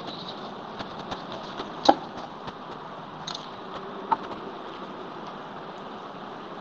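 Steady background hiss with a few scattered light clicks and taps. The sharpest click comes about two seconds in and another about four seconds in.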